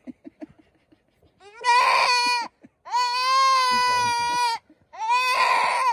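Young male goat bleating in distress, three long, loud cries in a row starting about a second and a half in, while it is held on its back and its scrotum is handled for castration.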